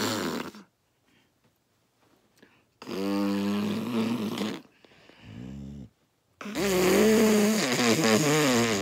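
Drawn-out, buzzy fart noises blown with the lips (raspberries), several in a row, the last one the longest and loudest.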